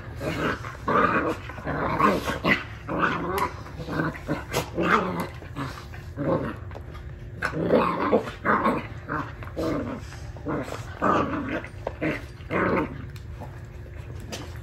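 A German shorthaired pointer puppy and a curly-coated dog growling at each other in many short bouts while play-fighting over a rawhide.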